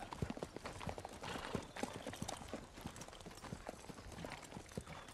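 Hooves of several horses walking, an irregular run of clip-clops.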